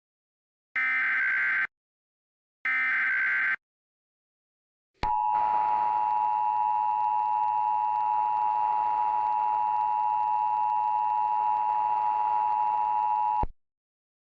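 Two roughly one-second bursts of Emergency Alert System SAME header data, a harsh digital warble, followed after a short gap by the EAS two-tone attention signal (853 and 960 Hz) sounding steadily with a hiss underneath for about eight seconds, then cutting off suddenly.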